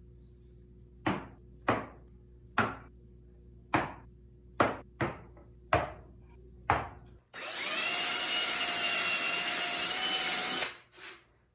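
An awl is struck about eight times, sharp separate taps, marking starting points for bolt holes in pine. Then a power drill runs for about three and a half seconds, its whine rising as it spins up and then holding steady before it cuts off.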